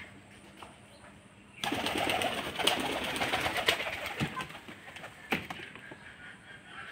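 Domestic pigeons: a loud burst of rustling noise full of quick clicks starts suddenly about one and a half seconds in and lasts about three seconds, with one sharp click a little after five seconds.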